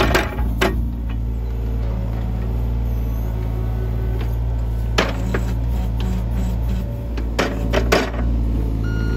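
John Deere 35G mini excavator's diesel engine running steadily under digging, with sharp knocks near the start, about five seconds in and again around seven to eight seconds in as the bucket dumps and shakes out wet soil that keeps sticking in it.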